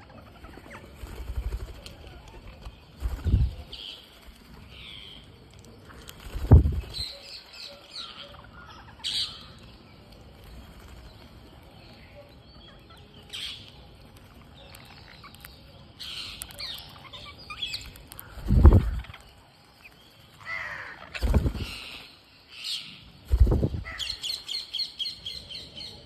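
Rose-ringed parakeets giving short high calls and chirps, with about five loud bursts of wing flapping as birds come and go. Near the end, a fast run of repeated shrill notes.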